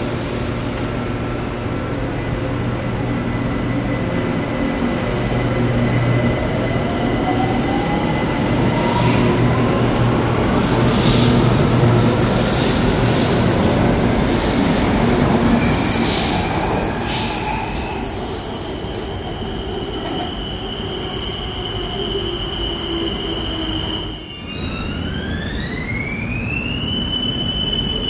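BTS Skytrain electric train running, with rumble and wheel squeal and a motor whine rising in pitch. Shortly after the noise dips near the end, a high electric whine glides upward and settles into a steady tone.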